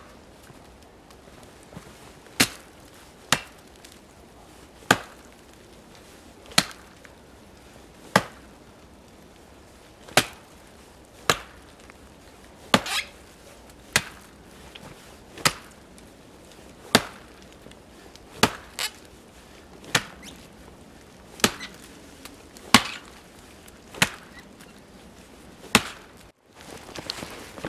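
An axe chopping into the trunk of a small standing tree near its base. About eighteen sharp strikes land at a steady pace, roughly one every second and a half, and stop near the end.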